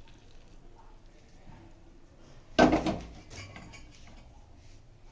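Kitchen utensils handled while straining a decoction into a cup, with one loud clatter of metal kitchenware about two and a half seconds in, followed by a few light clinks.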